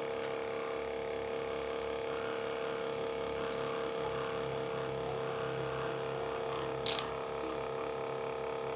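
Small electric cotton candy machine running: its motor spins the spinner head with a steady whine. One short click comes about seven seconds in.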